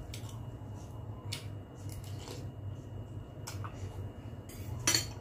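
Close-up eating sounds of a person chewing chicken noodles: a few short, wet mouth clicks and smacks, the sharpest near the end, over a steady low hum.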